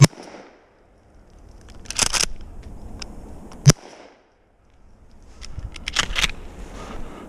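Two shotgun shots about four seconds apart, each a sharp, very loud crack. Between them are two short bursts of noise from handling or rustling.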